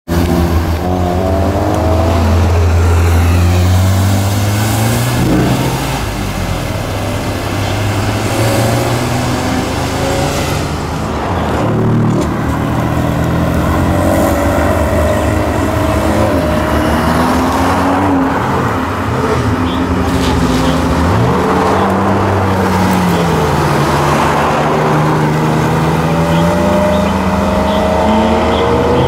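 Supercar engines running and accelerating as cars pull away and pass, the engine note rising in pitch several times as they rev up through the gears.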